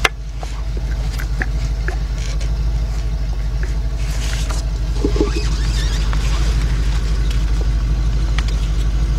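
Steady low rumble of an idling engine, with one sharp click right at the start and a few faint clicks and taps of hands working plastic electrical connectors.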